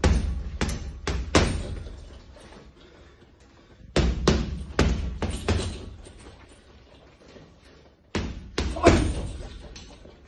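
Gloved punches landing on a hanging heavy punching bag: three quick combinations of four or five hard blows each, with pauses of about two seconds between them.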